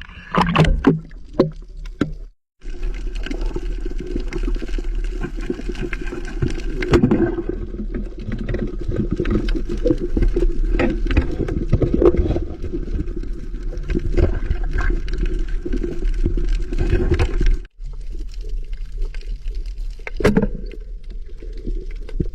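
Muffled underwater water noise and gurgling, with many short knocks and clicks. It drops out abruptly twice.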